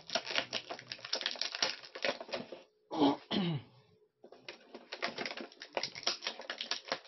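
Rapid clicking and crackling of a plastic blister tray being handled as an action figure's accessories are taken out. About three seconds in there is a short vocal sound, a throat-clear or hum that falls in pitch.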